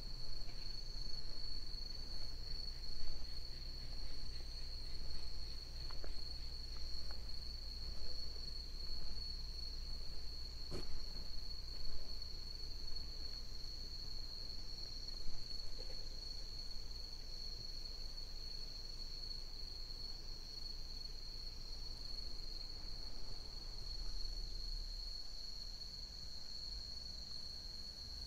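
A chorus of crickets singing, one steady high-pitched trill that never stops, over a low rumble.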